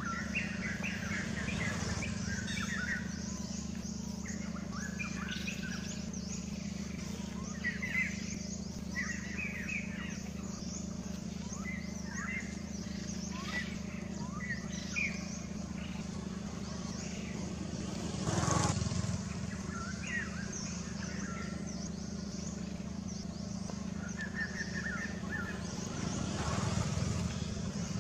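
Birds chirping in short, scattered calls over a steady low hum. A brief, louder rush of noise comes about two-thirds of the way in and another swells near the end, like passing vehicles.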